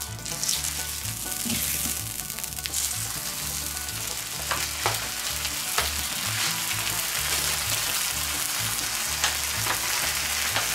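Bacon frying on a hot steel fire plate: a dense, steady sizzle that starts suddenly as the slab is laid down, with a few short pops.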